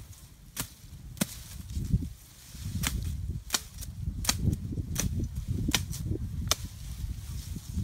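A blade chopping into the woody stems of a bush: a run of about eight sharp strikes, roughly one every three-quarters of a second, with leaves and branches rustling between them.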